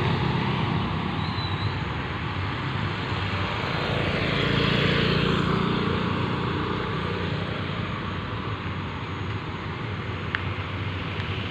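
Small motor scooters passing on a road, their engines swelling about midway through and then fading away. A single short click comes near the end.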